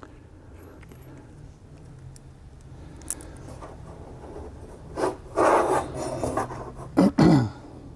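A steel TV mounting bracket rubbing and scraping against the plastic back of a TV while a mounting screw is fitted by hand. There is a click about three seconds in, and louder scrapes about five seconds in and again near the end, the last one dropping in pitch.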